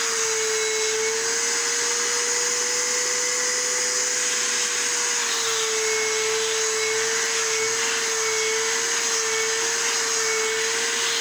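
Vacuum cleaner running steadily, its hose nozzle being drawn over a dog's coat; the motor's hum shifts slightly in pitch now and then.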